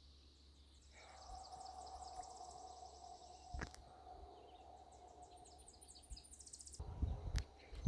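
Small birds singing rapid, high chirping trills over a faint steady hum. A sharp click comes midway, and a few knocks and thumps near the end.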